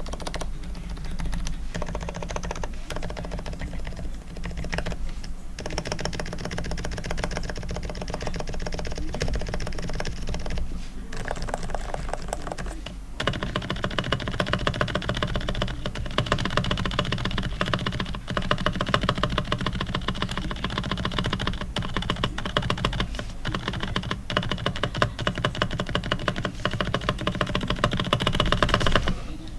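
ABKO KN10BT Bluetooth electrocapacitive (non-contact) keyboard typed on rapidly and continuously, many fast key clicks. This is the keyboard after a full lube: sliders with new O-rings and 205/105 lubricant, springs lubed with 105, and stabilizers with balanced wires and grease. The character of the typing changes about halfway through.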